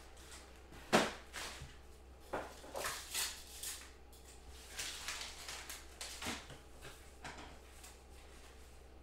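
Things being moved around on a tabletop by hand: a series of short knocks, bumps and rustles, the loudest a sharp knock about a second in.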